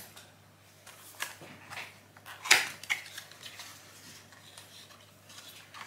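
Paper and packaging rustling and crinkling as a small wrapped advent-calendar package is handled and opened by hand, with scattered crackles and one sharper, louder crackle about two and a half seconds in.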